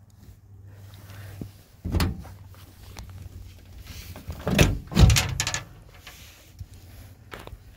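Stainless T-handle latch on a steel trailer toolbox clicking as it is turned, then the box's hinged steel door swinging down open with a cluster of metal clunks about halfway through.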